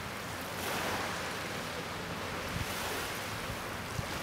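Choppy seawater washing and lapping, in a steady rush that swells a few times, with wind buffeting the microphone.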